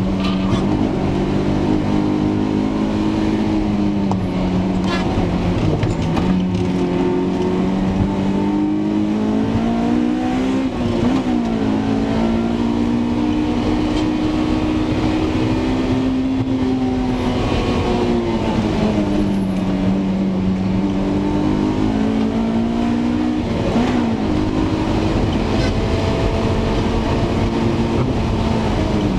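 Car being driven, with its engine note rising and falling slowly with speed over steady tyre and road noise from Bridgestone Potenza RE-12D tyres, and a few faint ticks. This is a test drive for an abnormal noise suspected to come from the rear shock absorbers or the rear bumper.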